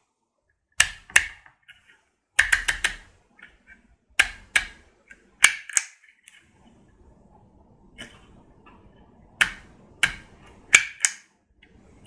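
Sharp plastic clicks from a handheld embossing label maker being handled and loaded with label tape, about a dozen of them, mostly in pairs a fraction of a second apart with short pauses between.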